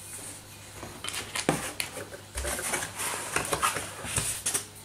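Handling noise as a Remington 870 shotgun barrel is lifted out of its styrofoam packing in a cardboard box: a run of knocks, scrapes and rustles. The loudest knock comes about a second and a half in.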